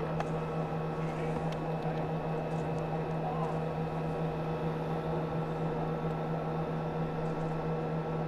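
Steady hum with several fainter higher tones over a bed of hiss, from the Soyuz MS-09 cabin audio feed during second-stage flight.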